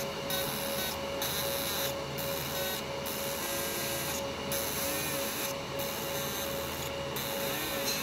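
MOPA fiber laser marker (JPT 60 W source) engraving a metal ring turned in a rotary chuck: a high-pitched hiss from the beam on the metal that breaks off briefly about once a second, over a steady hum with a constant mid-pitched tone.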